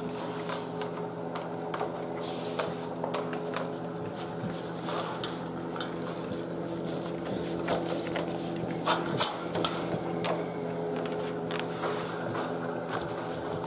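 An American Bully eating at its food bowl: wet licking and chewing, with irregular clicks and knocks of tongue, teeth and muzzle against the bowl, the loudest about nine seconds in. A steady low hum runs underneath.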